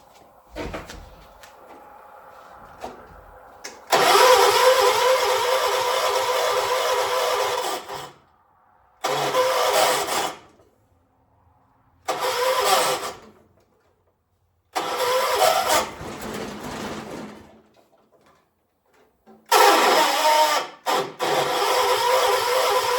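1976 John Deere 300 garden tractor's starter cranking the engine in five separate tries of one to four seconds each, cut off abruptly each time without the engine catching: a hard start. A single knock comes just before the first try.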